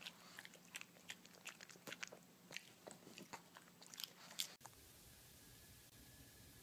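A pug chewing, a quick irregular run of faint crunchy clicks and mouth smacks that stops suddenly about four and a half seconds in, leaving only a faint hiss.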